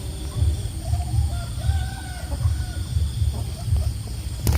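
A rooster crowing in the distance: one drawn-out, arching crow starting about a second in. Under it run regular low thumps about twice a second, and a quick run of sharp clicks comes near the end.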